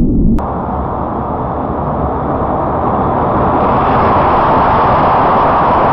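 HO-scale slot car trucks running on a plastic slot track: a steady whirring rush from their small electric motors and pickups, growing gradually louder as the trucks run past close by. A deeper rumble cuts off abruptly about half a second in.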